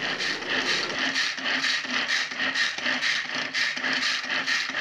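Hand-held pull-cord vegetable chopper being worked: the cord is pulled again and again, each pull spinning the blades with a whirring, ratcheting rattle as they chop onion, green chilli and ginger, in a quick, even rhythm.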